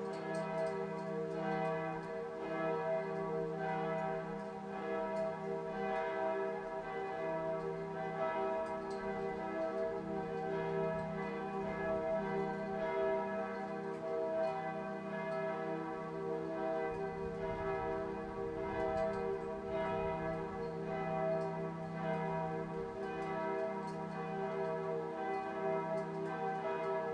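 Sustained bell-like ringing tones at several pitches held together, over a steady ticking pulse.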